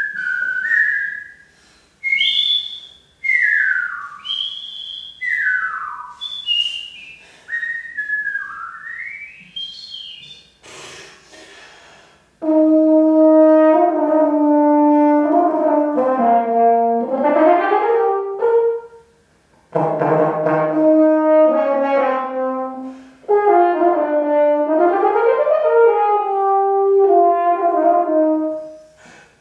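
High whistled phrases with sliding notes for the first ten seconds. Then a French horn plays a melodic passage from about twelve seconds in, in phrases broken by two short pauses.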